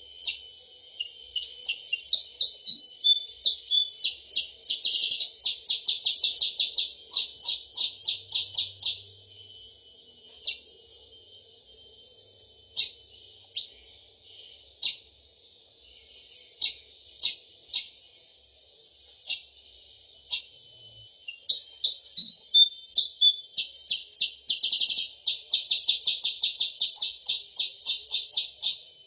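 Bird-lure recording of kutilang sutra (percang) calls: sharp, high chirps that break into fast rattling runs of many notes a second. The first run comes about 4 to 9 seconds in and another from about 22 seconds on, with single chirps spaced out between them.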